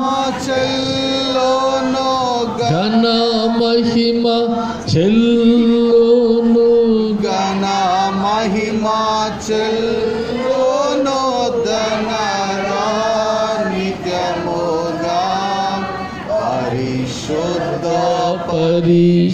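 A man singing a slow Telugu worship song into a microphone, in long drawn-out notes that slide up and down in pitch.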